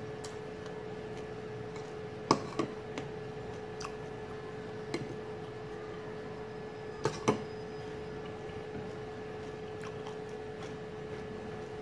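Eating at a table: a few sharp clinks of a fork against a ceramic plate, the loudest about two seconds in and a quick pair about seven seconds in, with fainter taps between, over a steady hum.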